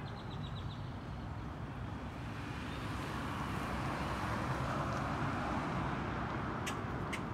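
Outdoor traffic noise: a vehicle passing, building to a peak in the middle and easing off. A brief rapid ticking at the start and a few sharp clicks near the end.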